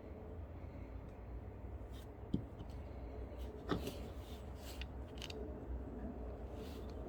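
Harrelson 5MM mouthpiece parts being handled and fitted together: light scrapes and rubs, with two sharper clicks a little over a second apart, over a steady low hum.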